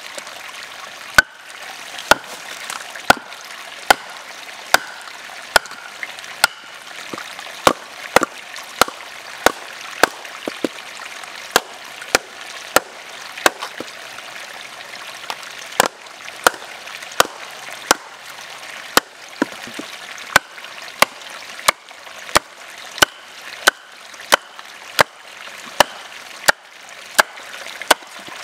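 A wooden baton knocks on the thick spine of a Condor Hudson Bay knife, a large 1075 carbon steel blade, driving it down through a standing log to split it. There are sharp strikes about one a second, with a stream running steadily underneath.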